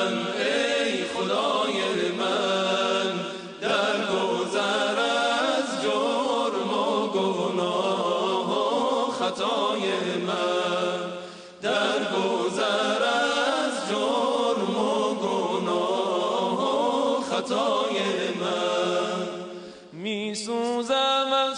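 Male vocal group chanting a religious hymn together, in long ornamented melodic lines. The singing breaks off briefly between phrases about four, twelve and twenty seconds in.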